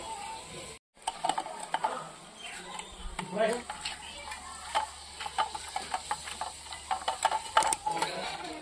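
A hand mixing raw eel pieces into a wet spice paste on a steel plate: irregular squelching and scraping, with many small clicks of fingers and fish against the metal. The sound drops out briefly about a second in, before the mixing starts.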